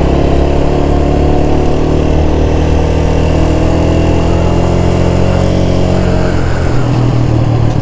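A 125 cc single-cylinder four-stroke motorcycle engine running steadily while riding along at an even pace. Its note changes about six and a half seconds in.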